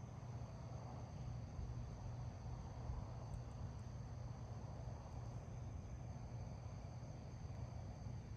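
Insects trilling steadily in high continuous tones, over a faint low rumble.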